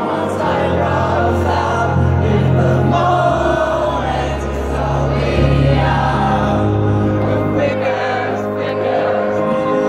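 Live rock band playing a slow ballad through a concert PA, heard from inside the audience, with many voices singing along like a choir over sustained bass notes.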